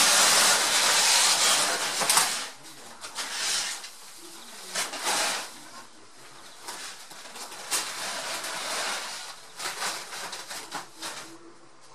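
Nylon fabric play tunnel rustling and crinkling as Rottweiler puppies scramble through it. It is loudest and most continuous in the first two seconds, then comes in shorter irregular bursts.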